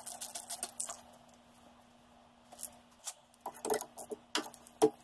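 Hand tools on the tractor's air cleaner fittings: a quick run of small metallic clicks as a worm-drive hose clamp is turned with a nut driver, then a pause and a few scattered clicks and knocks of metal.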